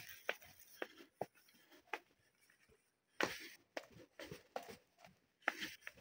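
Footsteps of a person walking, short scuffing steps about two a second with a brief pause near the middle.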